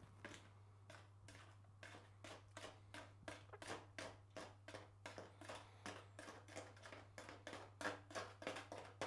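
Faint rapid series of light clicks and taps, about three to four a second, getting a little louder and quicker near the end, from hands handling supplement tubs, scoops and powder. A steady low hum runs underneath.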